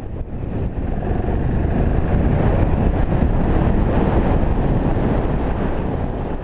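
BMW F650 GS motorcycle being ridden along a dirt track: steady engine and riding noise under heavy wind rush on the on-board camera's microphone, swelling in over the first second or so.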